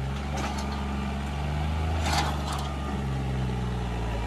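John Deere tractor's diesel engine running steadily under load while the tractor is stuck in mud, its pitch wavering slightly, with a few faint clicks or scrapes.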